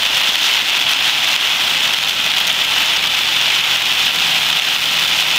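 Heavy tropical downpour pelting a car's roof and windshield, heard from inside the cabin as a loud, steady hiss of rain.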